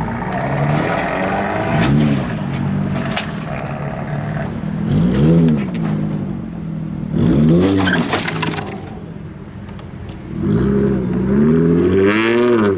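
A car engine idling and being revved in short blips about four times, the pitch rising and falling each time.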